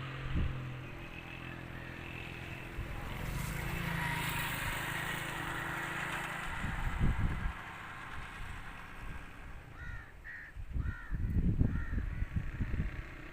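A steady low engine-like hum with low rumbling thumps, and then, about ten seconds in, a bird calling four or five times in quick succession.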